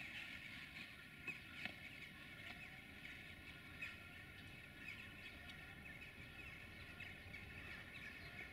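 Faint bird chirping, many short calls, over a low steady background rumble.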